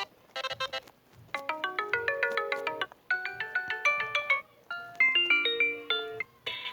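Xiaomi (Mi) phone ringtones playing: a short burst of quick repeated electronic notes, then from about a second in a melodic ringtone of short pitched notes in three phrases with brief gaps between them. Near the end a different ringtone begins.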